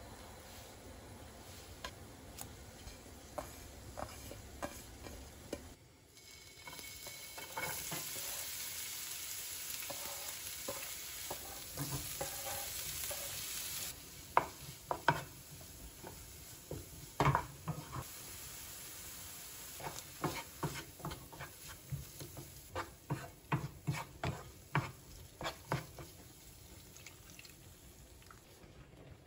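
Food sizzling in a hot pan, starting about six seconds in and cutting off abruptly near the middle. Then a utensil stirring in the pan with a run of short clicks and knocks against it.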